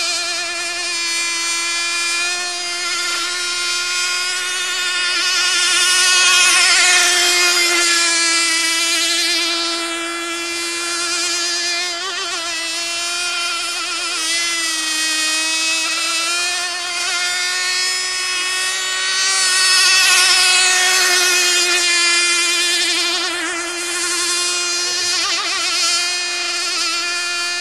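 .12-size nitro glow engine of a radio-controlled rigger boat running flat out, a high, steady buzzing note. It grows louder as the boat passes close about six and twenty seconds in, and its pitch dips briefly around the middle.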